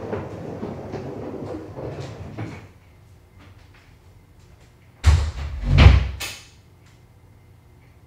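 Off-screen knocking and rustling that fades out, then about five seconds in a door banging shut with two heavy, deep thumps, the second the louder.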